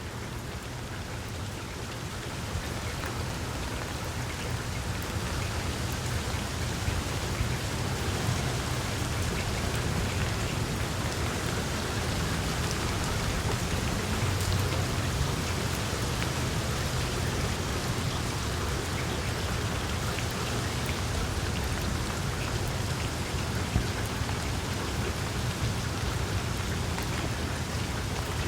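Steady rain falling with wind, a dense patter of drops over a low rumble, growing a little heavier over the first several seconds.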